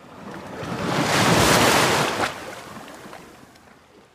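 Ocean surf: a wave washing onto a beach, a rushing noise that swells to a peak about a second and a half in and then fades away.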